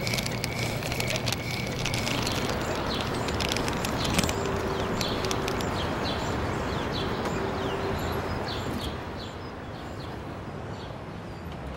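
Outdoor ambience: a steady rush of noise like distant traffic, with short high bird chirps through the middle and scattered light clicks.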